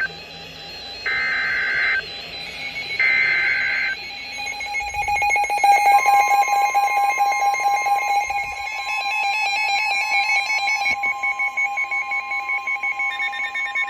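EAS alert on NOAA weather radios: two one-second bursts of buzzy SAME header data, about one and three seconds in. Then several weather radios sound their alert alarms together in a mix of steady and rapidly pulsing beeps, joined about six seconds in by the long steady Weather Radio warning tone.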